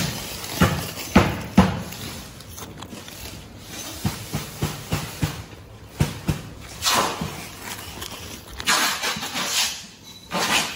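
Handling of vacuum-packed salmon trays in crushed ice. Several sharp knocks come in the first couple of seconds, then scattered clicks, and near the end bursts of rustling and crunching as the ice and plastic are moved.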